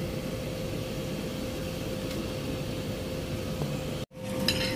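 Steady restaurant room noise with a constant hum, such as air conditioning or a fan. The sound drops out for an instant about four seconds in, and a few faint clinks follow near the end.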